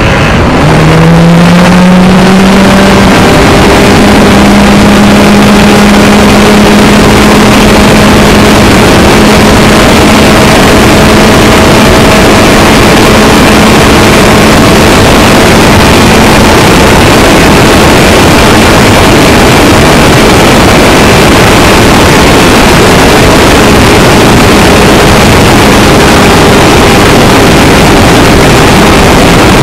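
Hanger 9 Ultra Stick RC plane's motor and propeller, heard close up from on board: the pitch rises over the first second or two as it throttles up for takeoff, then holds a loud, steady drone through the flight.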